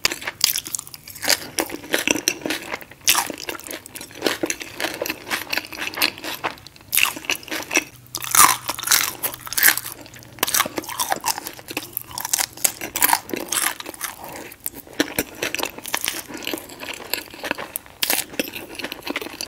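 Close-up eating sounds: a person biting and chewing crispy breakfast food such as bacon, with many sharp, irregular crunches.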